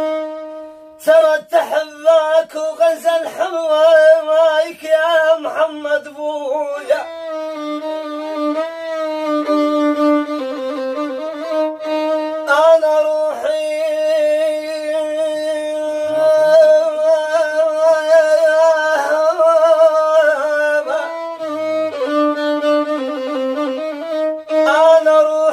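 Solo violin playing a melody with wide vibrato over a steady lower held note.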